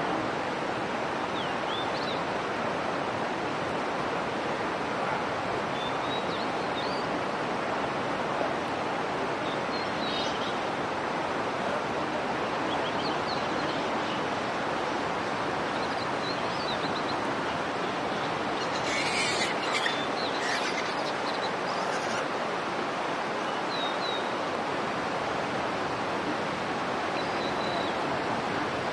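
Steady outdoor background rush, with faint short high chirps now and then and a brief flurry of sharper high-pitched calls a little past the middle.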